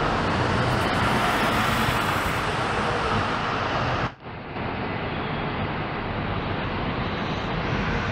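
City bus driving past close by under the concrete roof of a covered bus station, a steady noise of engine and tyres. The sound breaks off about four seconds in, and another bus is heard approaching.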